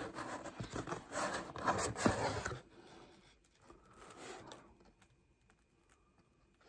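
Cardboard pizza box being opened: the lid and flaps scrape and rustle for about two and a half seconds, with a sharp tap about two seconds in, then a fainter rustle of cardboard a little later.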